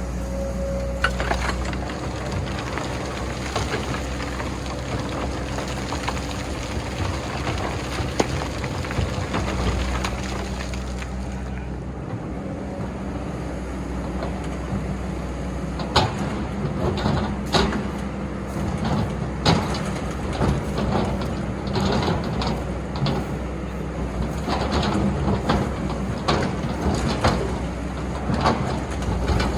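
Excavator's diesel engine running steadily, with a run of sharp clanks and knocks through the second half as the machine works.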